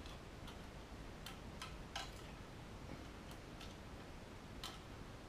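Faint, irregular small clicks as a small screwdriver works the tiny screws out of the plastic saddles on an O gauge model locomotive's bogie, metal tip ticking on screw heads and plastic.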